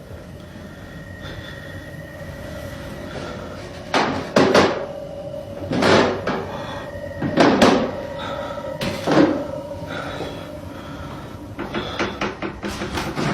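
Five loud bangs inside a house, about a second and a half apart. They are the unexplained banging heard in the night, over a faint steady tone. A quicker run of lighter knocks starts near the end.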